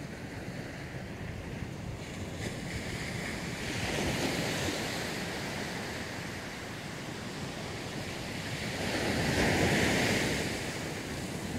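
Ocean surf on a rocky, cobbled shore: a steady wash of waves, with two waves breaking louder about four seconds in and again near ten seconds, and wind on the microphone.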